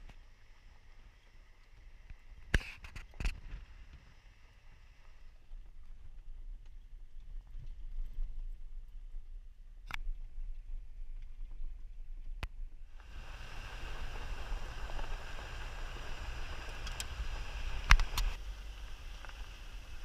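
Jeep driving up an unpaved gravel road: a steady low engine and road rumble with several sharp clicks and knocks. About two-thirds of the way through, a louder hiss of tyre and road noise sets in.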